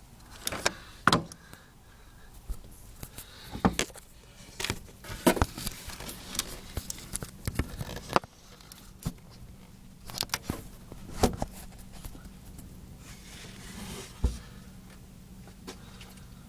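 Honda Civic creaking while turning at low speed: a string of irregular sharp creaks and clicks, some loud, coming and going as the wheels turn.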